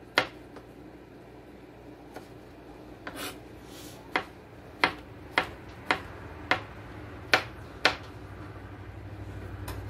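Knife chopping small pieces of bell pepper on a plastic cutting board: about ten sharp taps, sparse at first, then roughly two a second. A low hum builds near the end.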